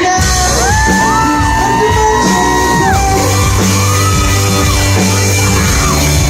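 Live band playing amplified rock music over a steady bass line, with high voices sliding up and holding long notes above it.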